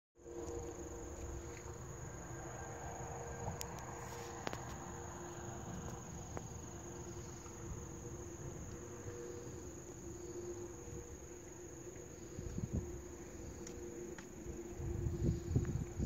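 Insects trilling in a steady high-pitched drone from the lakeside vegetation, with a low rumbling noise underneath that swells near the end.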